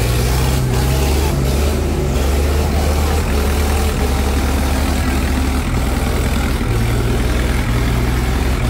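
Heavy tractor diesel engine running steadily, its low note shifting a few times.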